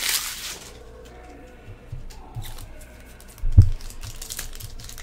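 Trading cards and packs being handled on a table: light clicks and rustling, with a brief crinkle at the start and one low thump about three and a half seconds in.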